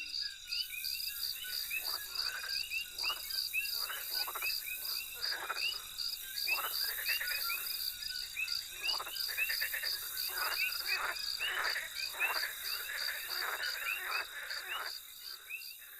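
Chorus of frogs calling: many short, overlapping croaks in quick irregular succession. Behind them runs a steady, evenly pulsed high insect trill, and the sound fades near the end.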